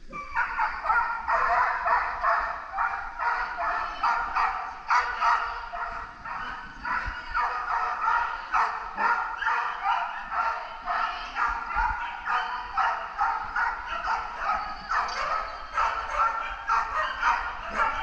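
A dog barking rapidly and without letting up, a few barks a second, as an agility dog does while running the course with its handler.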